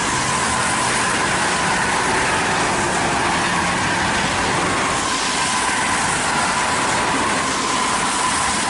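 Heavy rain and traffic on a wet highway: tyres hissing through water and spray as a tour bus and cars come along, a steady dense noise. A faint high whine slowly drops in pitch.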